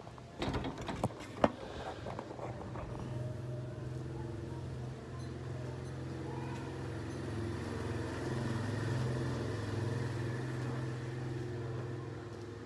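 A few knocks as a phone is handled and set down, then a steady low engine-like hum, as of a vehicle running nearby, that lasts until near the end.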